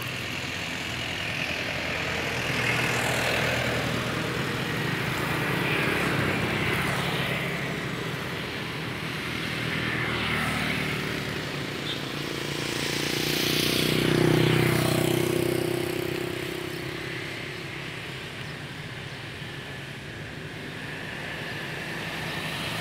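Road traffic: vehicles passing one after another, each swelling and fading, with the loudest pass, an engine running, about two-thirds of the way in.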